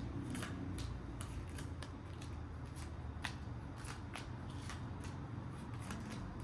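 Playing cards being handled and laid out: a run of light, irregular clicks and snaps, two or three a second, one a little louder about three seconds in.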